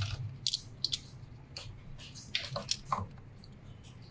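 Plastic ink dampers and their tubing being handled and pressed back onto a DTF printer's print head: a handful of short, soft clicks and rustles at irregular intervals.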